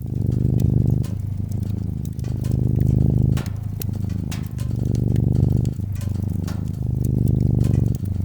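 Domestic cat purring steadily, the purr alternating between stronger and softer phases about every second with its breathing. Scattered sharp crackles of a wood fire sound over it.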